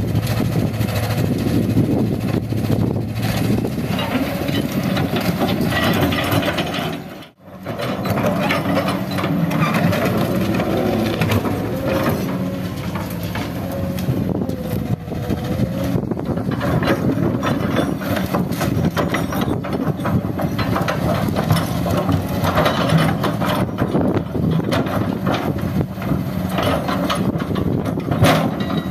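Hydraulic excavator's diesel engine running under load, with the scraping and crunching of its steel bucket breaking and shoving concrete rubble. The sound cuts out briefly about seven seconds in.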